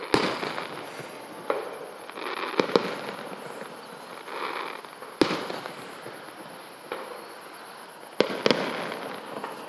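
Aerial fireworks going off: several sharp bangs at uneven intervals, two of them close together near the end.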